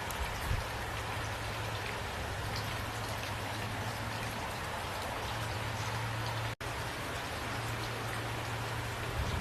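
Steady rain falling, with individual drops ticking on a surface over an even hiss and a low steady hum beneath. The sound cuts out for an instant about two-thirds of the way through.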